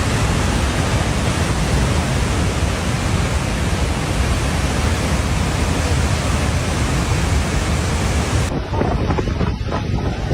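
Loud, steady rushing of flowing floodwater. About 8.5 seconds in it cuts off suddenly to a different scene with irregular rattling and clanking.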